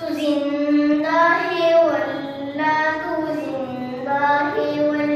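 A boy singing an Urdu naat solo into a microphone, without instruments, in long held notes that bend and waver between phrases.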